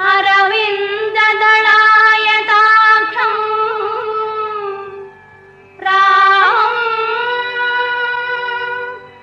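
Indian film soundtrack music in a Carnatic style: a melody of long held, wavering notes in two phrases, with a short break about five seconds in.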